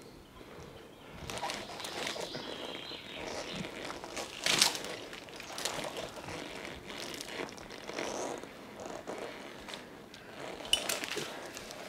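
Irregular rustling and crackling of a climber's clothing and gear as they move on the rope, with a sharp knock about four and a half seconds in and another near the end.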